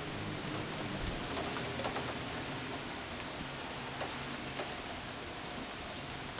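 Steady light rain falling, with a few scattered drip ticks. A faint low hum fades out over the first few seconds.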